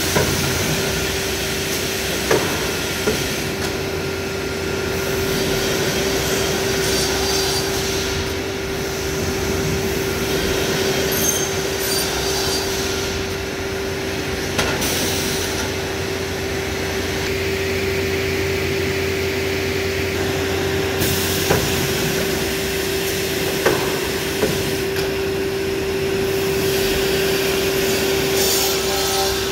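Masterwood panel saw running: a steady machine hum with one constant tone and a rushing of air, broken by a few sharp clicks and knocks as it works.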